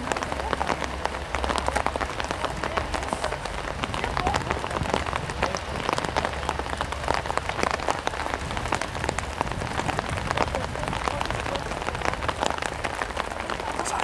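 Dense, continuous crackling patter of many small ticks over a low rumble, with no let-up.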